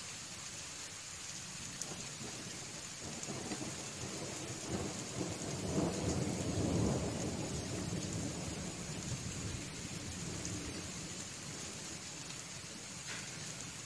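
Steady rain with a rolling rumble of thunder that builds from about three seconds in, is loudest around the middle and dies away.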